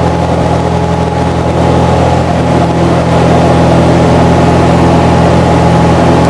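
Light aircraft's engine and propeller droning steadily in cruise, heard from inside the cabin; it gets slightly louder about three seconds in.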